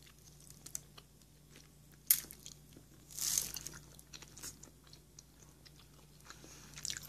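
Quiet mouth sounds of someone eating udon noodles: soft chewing with small wet clicks, one sharper click about two seconds in and a short hiss a little after three seconds.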